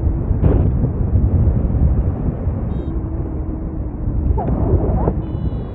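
Wind rushing and buffeting over the microphone in a paraglider in flight: a loud, steady, low rumble of airflow.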